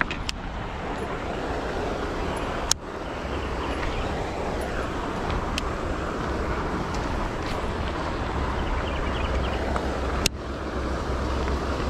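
Steady rushing noise of river water flowing below a dam spillway, with a low wind rumble on the microphone. Two sharp clicks cut through it, one about three seconds in and one near the end.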